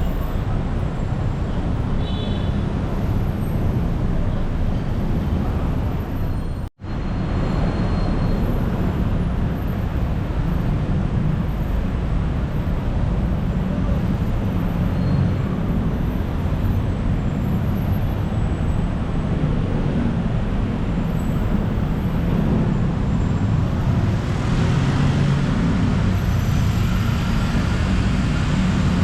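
City street traffic: a steady, loud rumble of passing vehicles, with a brief dropout to silence about seven seconds in.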